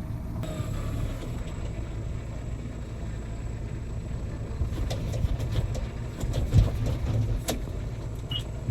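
A heavy machine's engine running steadily, with a few sharp knocks past the middle, the loudest about six and a half seconds in.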